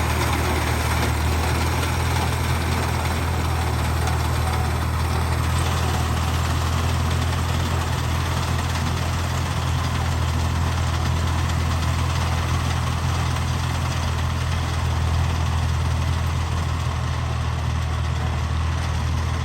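Fiat 480 tractor's three-cylinder diesel engine running steadily with a low, even hum.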